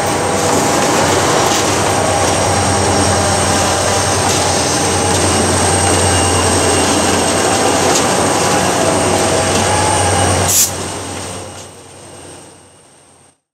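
GM GT22 diesel-electric helper locomotives passing close at the rear of a loaded grain train: engines running with a steady low hum over dense wheel and rail noise and a thin, steady high-pitched squeal. About ten and a half seconds in there is a sharp click, after which the sound fades away.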